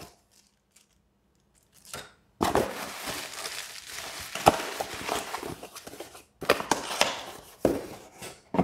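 A plastic bag crinkling and rustling as it is pulled out of a small cardboard box. The rustling starts a couple of seconds in and runs for several seconds, followed by shorter crackles and cardboard scraping near the end.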